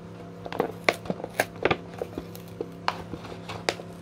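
Lid of a paper instant-noodle cup being peeled back from the rim, crackling in irregular sharp snaps from about half a second in.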